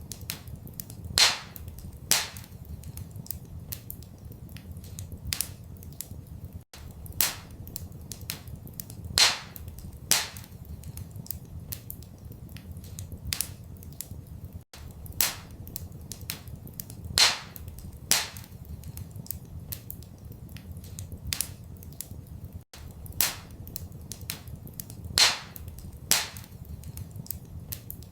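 Wood fire in a fireplace crackling, with sharp irregular pops (a few loud snaps and many small ones) over a low steady rumble. The same pattern repeats about every eight seconds.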